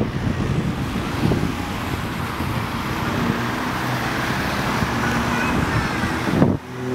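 Aerobatic monoplane's piston engine and propeller droning steadily overhead, mixed with a broad rush of noise; the sound drops away suddenly for a moment near the end.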